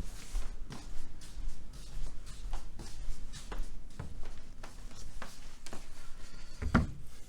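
Irregular light clicks, knocks and rustles of objects being handled, with a stronger knock near the end, over a low steady hum.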